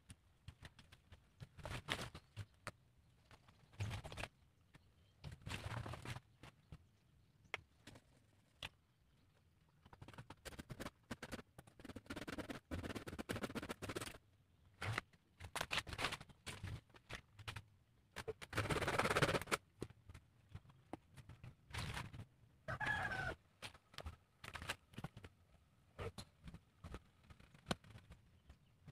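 Scattered knocks, scrapes and rustling of soil, roots and dry leaf litter being worked by hand to dig out a wild sea hibiscus (waru) tree. There is a louder, rougher rustle about two-thirds of the way through and a brief bird-like call shortly after it.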